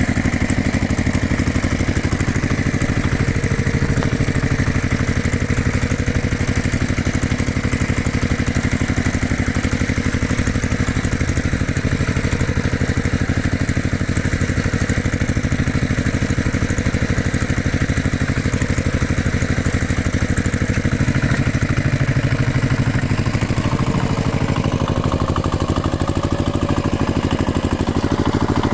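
A heavy machine's engine running steadily, with a faint whine that rises slightly near the end.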